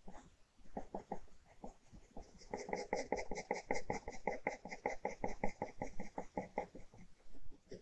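Ballpoint pen hatching on paper: a few slower, scattered strokes, then from a little over two seconds in a fast, even run of back-and-forth strokes, about seven a second, which stops shortly before the end.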